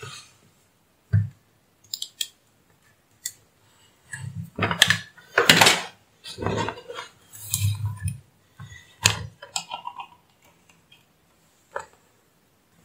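Clicks, knocks and clatter of a small mains transformer and its wires being handled and set down on a workbench. The sounds come scattered, busiest in the middle.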